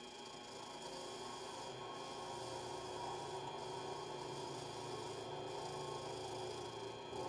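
Mini lathe running with a steady motor hum while its cutting tool turns down a spinning glow-epoxy ring blank: a rough scraping that builds over several seconds and stops suddenly near the end as the tool comes off the cut.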